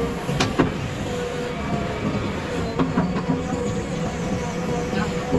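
Diesel engine of a JCB 3DX backhoe loader running steadily, with a few sharp knocks.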